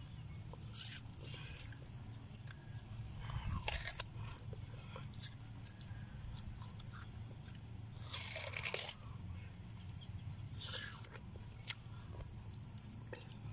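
Crunchy bites and chewing of ripe watermelon flesh, in several separate bursts with pauses between them, the loudest about eight seconds in.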